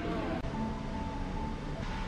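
Soft background music with long held notes. It comes in about half a second in, replacing the pottery-class room sound.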